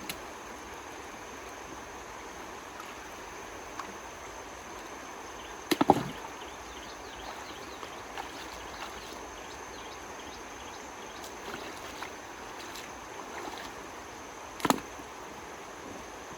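Steady rush of running water, with a few sharp splashes, the loudest about six seconds in and another near the end.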